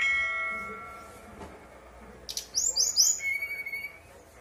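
Brown-chested jungle flycatcher (SRDC) singing in clear flute-like whistles. It opens with a loud held note that fades over about a second. Past the middle comes a quick run of four high down-slurred notes ending on a short steady whistle.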